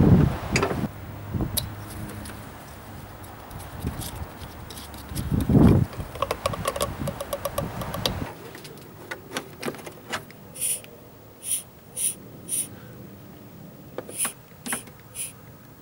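Mityvac MV8500 hand vacuum pump being squeezed, each stroke a short sharp hiss, four in quick succession and then three more near the end, drawing used brake fluid out of the reservoir. Before that come a couple of loud knocks and handling noise under the bonnet.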